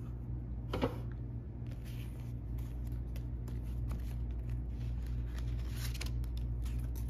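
Paper dollar bills rustling and crinkling as they are handled and slipped into a binder's cash pouch, with a sharper rustle about a second in. A steady low hum runs underneath.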